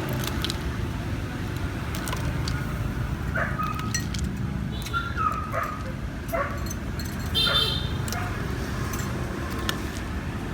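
City street ambience: a steady rumble of traffic, with scattered short voice-like sounds in the middle and a brief high-pitched sound with several tones about seven and a half seconds in.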